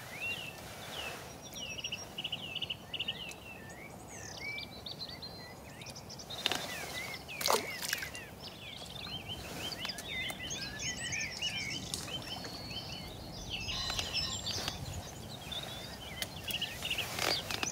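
Small birds chirping and warbling over a steady outdoor hush, with two brief knocks about six and a half and seven and a half seconds in.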